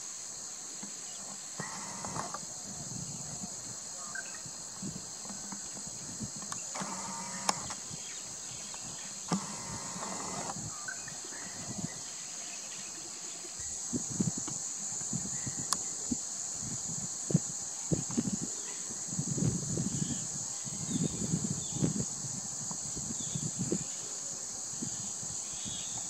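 Steady, high-pitched drone of insects in dry forest. A few short calls sound over it in the first half, and from about halfway on there is a run of low, uneven rumbling thumps.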